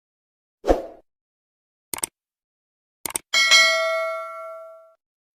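Added end-of-video sound effects: a short thump, two quick double clicks, then a bright metallic ding that rings out and fades over about a second and a half.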